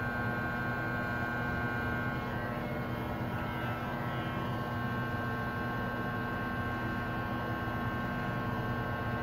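Electric hair clippers buzzing steadily as they cut hair.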